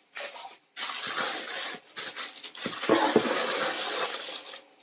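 Packaging being handled during an unboxing: paper or plastic rustling and crinkling in uneven stretches, with a few soft knocks about three seconds in.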